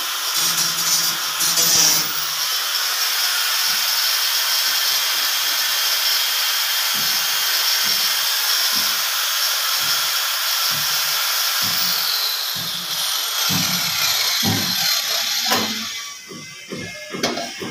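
Handheld power tool with a round hole-cutting attachment running as it cuts a hole in a ceiling board, then spinning down with a falling whine about three-quarters of the way through. Clicks and knocks of the tool being handled follow near the end.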